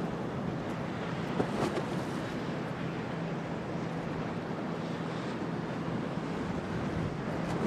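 Stormy harbour wind and waves: a steady rush of wind and water with wind buffeting the microphone, over a steady low hum. A couple of brief, sharp sounds stand out about a second and a half in.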